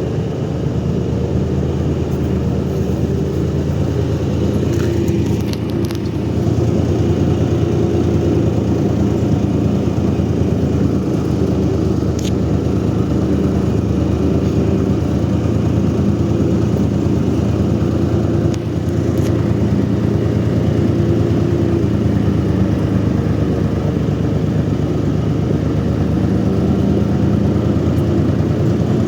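An engine running steadily, a continuous low drone that gets a little louder about six seconds in.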